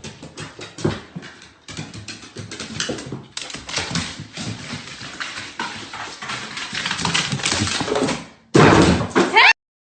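Dog sounds in a small room mixed with many sharp knocks and clatter, broken by abrupt cuts, with a loud pitched vocal burst near the end.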